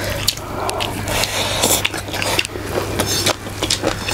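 Eating sounds: chewing and lip-smacking with many small wet clicks, and fingers squishing and scraping rice and meat on plates.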